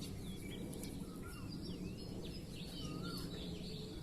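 Small wild birds chirping in short, quick calls with rising and falling notes, several at once, over a steady low background rumble.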